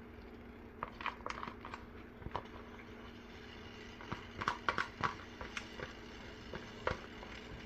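A metal spoon or spatula knocking and scraping against a cooking pan as crumbled paneer is stirred into pav bhaji, in two bursts of quick clinks. A steady low hum lies underneath.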